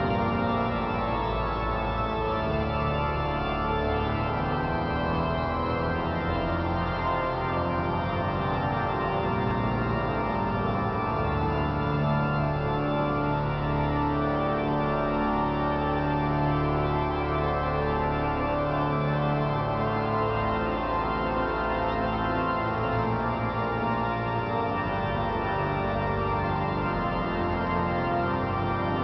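Pipe organ playing slow, sustained chords over deep held bass notes, with the chords changing every few seconds, in the vast space of a basilica.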